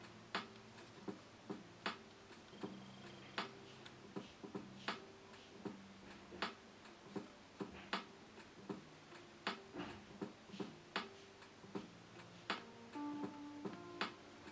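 Quiet lofi hip-hop music: soft sustained chords with a crisp drum hit about every second and a half and lighter ticks in between.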